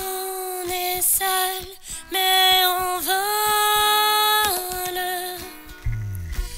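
A woman's voice singing a wordless melody, with a long held note in the middle; a low bass note slides in near the end.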